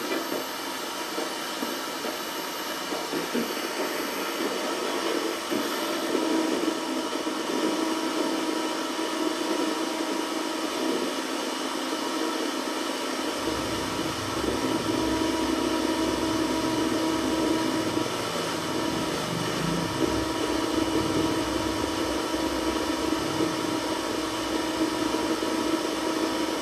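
FM tuner board's audio through a speaker, tuned to about 74 MHz where it has found a signal: a steady static-like hiss with a constant tone running under it. A deeper rumble joins about halfway through.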